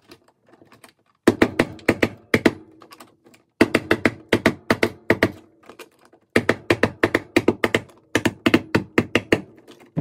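Claw hammer tapping a blue plastic electrical switch box into a hole in the drywall to seat it flush, in three runs of quick light taps.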